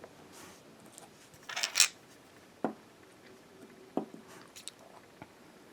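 Handling noises from a metal lightsaber hilt: a short scraping rustle about a second and a half in, then two sharp clicks about a second apart.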